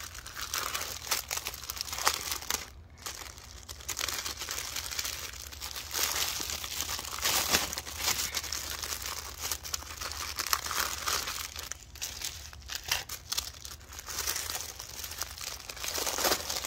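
Clear plastic wrapping crinkling as it is pulled open and peeled off a packaged kit by hand, in irregular bursts with a short lull about three seconds in.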